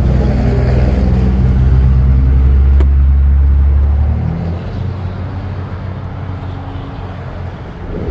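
A motor vehicle engine runs with a low, steady hum that drops away suddenly about four seconds in, leaving a weaker rumble. A single sharp click comes near the middle.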